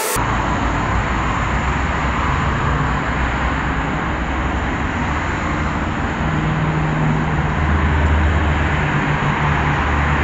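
Steady road traffic noise, with a low vehicle engine hum that grows stronger in the second half.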